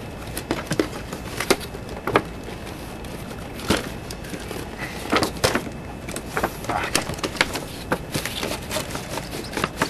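Cardboard and plastic toy packaging being handled: scattered taps, clicks and scrapes as a boxed figure is slid out of its cardboard sleeve.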